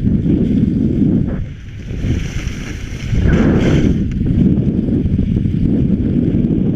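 Wind buffeting a GoPro's microphone while skiing downhill: a loud, steady low rumble that eases briefly about two seconds in, with a brighter hiss of skis on the snow a little after three seconds.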